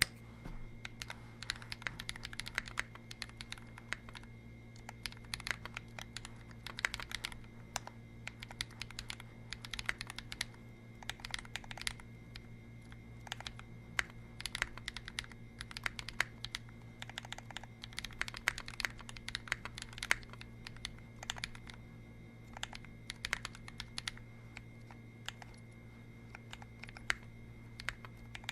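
Typing on a custom 60% mechanical keyboard with lubed Holy Panda tactile switches, an aluminum case with a brass weight and an aluminum top-mount plate: a steady run of irregular keystroke clacks. A low steady hum sits underneath.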